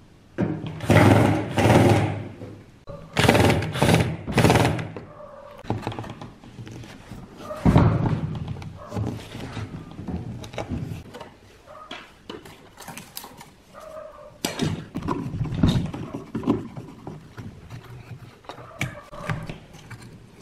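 Cordless drill-driver running in short bursts as it backs screws out of a speaker's front panel, with clicks and knocks from handling the screws and the loosened speaker driver between the bursts.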